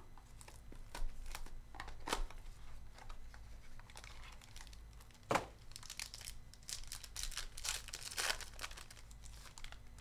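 Foil wrapper of a Donruss Optic basketball card pack crinkling and tearing as the pack is handled and ripped open. A single sharp crack about halfway through is the loudest sound, and the crinkling grows denser just after it.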